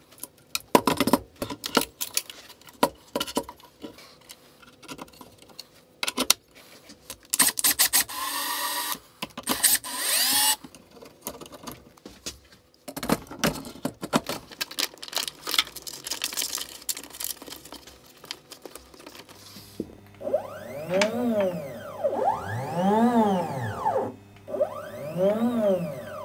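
Assembly clatter of parts and screws with short runs of a cordless drill-driver. From about twenty seconds in, the homemade CNC router's stepper motors whine up and down in pitch three times, about two seconds apart, as the axes are jogged back and forth to check their movement.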